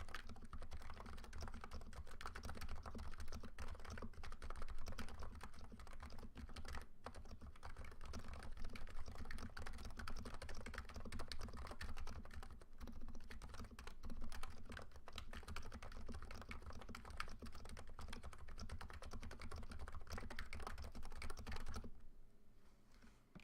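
Fast, continuous typing on a NiZ Nano 75 electro-capacitive keyboard with 45 g springs and lubed housings and sliders. The keystrokes stop about a second before the end.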